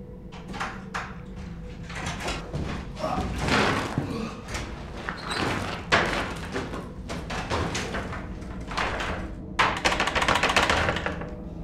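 Scuffling and knocks from a man moving about a gritty cellar floor, then, from about ten seconds in, a sudden dense rattling and banging against a wooden slatted door.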